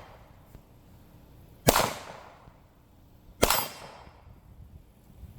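Two shots from a Glock 19 Gen 5 9mm pistol, fired about a second and three-quarters apart, each followed by a short fading echo.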